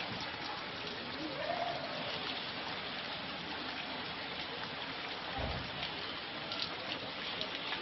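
Steady rain falling, a dense even patter of drops, with one brief low thump about five and a half seconds in.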